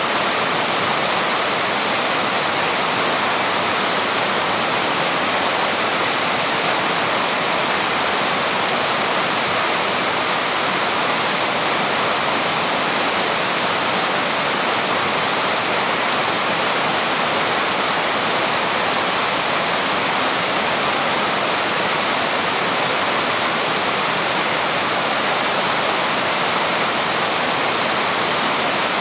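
Small waterfall pouring over rocks, a steady, unbroken rush of falling water.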